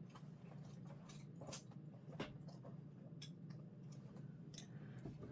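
A handful of faint, scattered clicks and light taps from small objects being handled, over a low steady hum.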